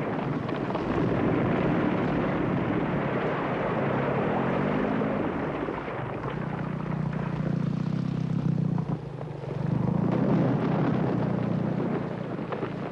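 A huge mass of glacier ice collapsing: a long, loud rumble that rises just before it begins and keeps going for many seconds, with a low droning tone under it from about six seconds in.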